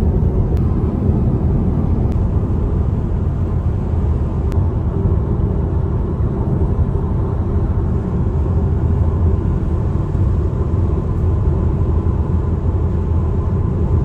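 Steady road noise of a car cruising on a highway, heard from inside the cabin: an even low rumble with no change in pace.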